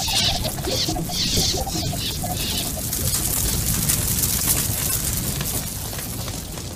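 Fire sound effect: a dense crackle of burning flames, with a few rushing swells in the first couple of seconds, easing slightly near the end.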